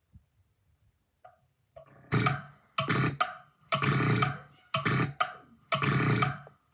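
A person snoring loudly: harsh guttural snores, one roughly every second, starting about two seconds in.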